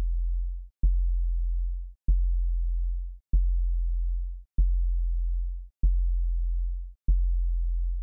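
A very deep synthesized bass tone pulsing about once every 1.25 seconds. Each pulse starts with a sharp click, holds for about a second and cuts out before the next.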